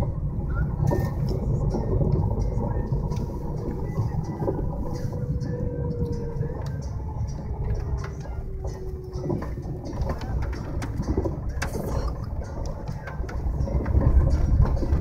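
Vehicle driving slowly, heard from inside the cabin: a steady low rumble of engine and tyres, with scattered clicks and knocks. A faint tone slowly falls in pitch between about four and nine seconds in.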